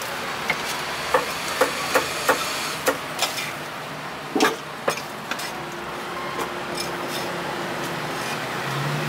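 Cleaver chopping roast meat on a wooden chopping block: about ten sharp, irregular knocks in the first five seconds, then only a couple more, over a steady background of street traffic.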